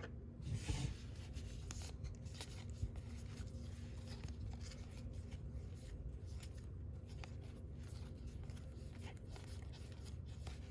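Faint rubbing and light clicks of baseball trading cards being flipped through and slid against one another, over a steady low hum.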